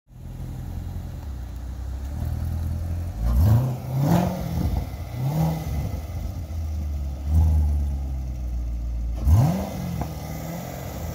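2014 Corvette Stingray Z51's 6.2-litre V8 idling, then blipped with the throttle about five times; each rev rises and falls back to idle. The strongest revs come about three, four and nine seconds in.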